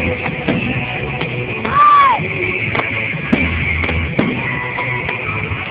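Rock-style music with a drum kit and guitar.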